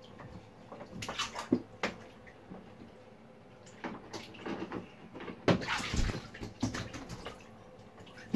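Water splashing in a part-filled bathtub as a young long-tailed (Java) macaque jumps in and thrashes about, in a short bout about a second in and a longer one from about four to seven seconds in.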